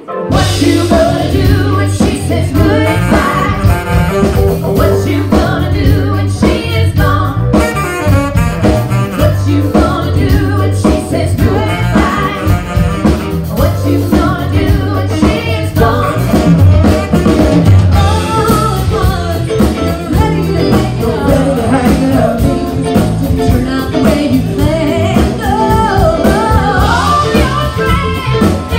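Live band playing a soft-rock song: two women singing lead over electric guitars, bass, drum kit and electric keyboard, with a steady beat.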